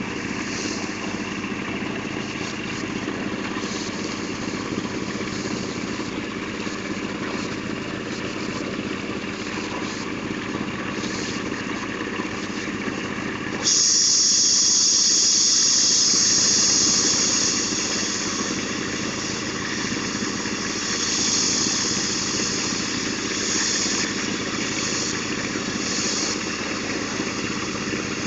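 Water-well drilling rig running steadily: the engine and motor driving the drill and mud pump hum without a break. About 14 s in a loud hiss sets in abruptly, strongest for a few seconds, then eases but carries on, with water and mud spraying from the borehole.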